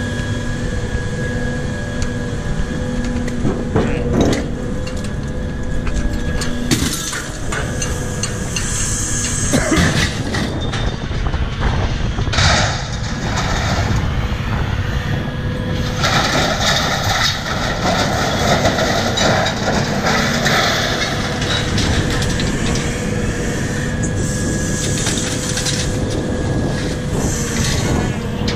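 Scrap-yard crane machinery running steadily while a lifting magnet pulls scrap metal off a trailer, with crashes and scraping of metal. The clattering is heaviest about ten seconds in, again around twelve seconds, and for several seconds from about sixteen seconds.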